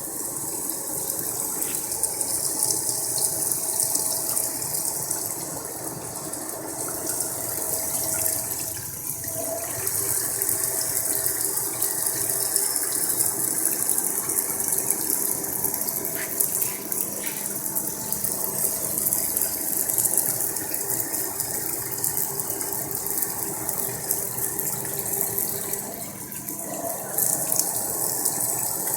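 CNC wire EDM machine cutting: a steady, dense high hiss with fine crackling from the spark cutting and flowing coolant water, over a faint machine hum that shifts briefly about nine seconds in and again near the end.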